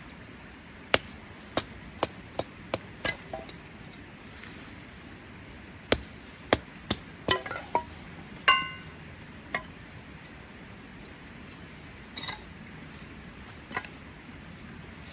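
Irregular sharp knocks, about a dozen in two runs, and one ringing clink about eight and a half seconds in.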